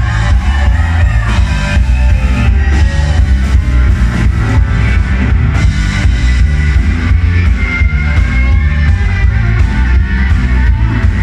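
A live rock band playing loud: drum kit, electric guitar and keyboard over a heavy bass.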